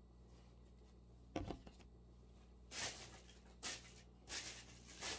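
Mandarin orange being peeled by hand: a low bump about a second and a half in, then several short, faint rustling tears of the peel.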